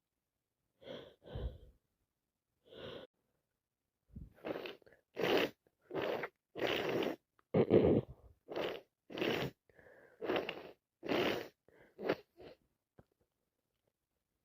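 A woman with a head cold giving short, noisy, breathy sneeze-like bursts through a congested nose: three spaced ones, then a fast run of about a dozen, roughly one every two-thirds of a second, stopping a couple of seconds before the end.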